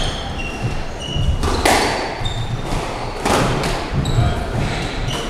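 Squash rally: the ball is struck hard three times, about a second and a half apart, with short high squeaks of court shoes on the wooden floor in between.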